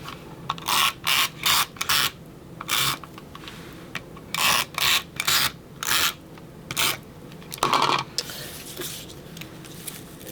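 Paper border strips being slid, stuck and rubbed down onto a scrapbook page: about a dozen short papery rasps, some in quick runs of two or three.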